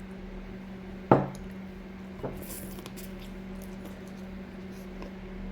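Kitchen handling noises over a steady low hum. A hard item is knocked or set down sharply about a second in, with a short ring, followed by a lighter click and faint rustling.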